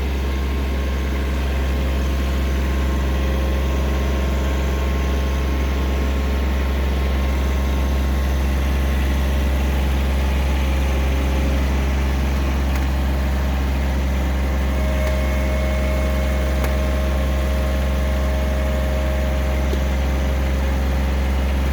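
John Deere 1023E compact tractor's three-cylinder diesel engine running steadily at an even pitch while it drives a rear rototiller through the garden soil.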